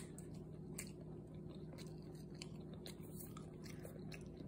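Someone chewing a bite of soft chocolate banana cake close to the microphone: faint, irregular small clicks and mouth noises over a low steady hum.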